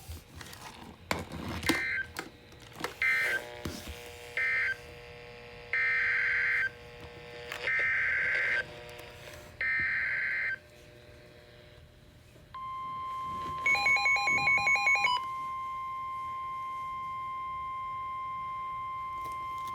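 Emergency Alert System data tones on NOAA Weather Radio. First come three short screeching digital bursts (the end-of-message code), then three longer SAME header bursts about a second each. About twelve seconds in, a long steady 1050 Hz warning alarm tone starts, announcing a new warning, with a brief rapid beeping over its first second and a half.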